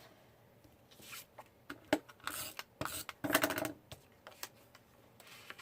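Paper and cardstock being handled: several short bursts of rustling and crinkling with a few light taps, clustered in the middle of the stretch.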